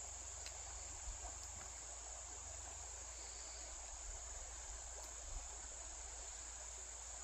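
Steady, unbroken high-pitched chorus of insects, with a few faint ticks.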